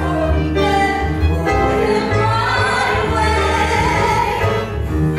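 Musical-theatre song with voices singing sustained notes over a live band of keyboard, bass guitar, violin and guitar, with a steady bass line underneath.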